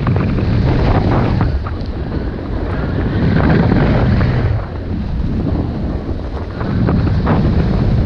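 Wind rushing over the microphone of a snowboarder's camera at speed, mixed with the hiss and scrape of the snowboard sliding over packed snow. The rumbling noise swells louder and eases three times.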